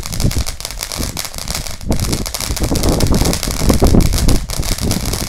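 Fountain firework burning, a dense crackling and hissing spray of sparks over a low rumble, growing louder about two seconds in.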